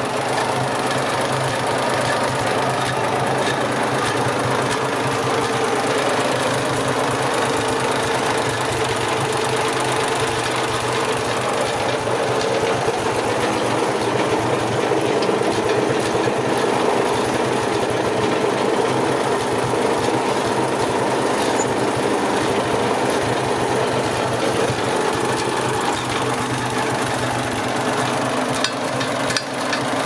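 Old tractor engine running steadily with its rocker cover off, showing a lot of blow-by. The owner judges it fairly low on compression and hopes the piston rings will free up once it is at operating temperature.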